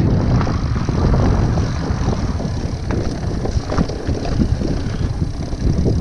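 Wind buffeting the microphone of a mountain bike rider on the move, with tyre and frame noise from riding a sandy trail and a few light clicks.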